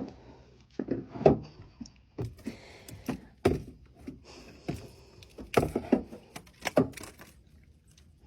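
A series of irregular knocks and thumps with faint scraping between them, several loud strokes grouped together, fading out near the end.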